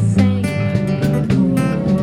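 Live acoustic guitar strumming a song's accompaniment, with regular strokes.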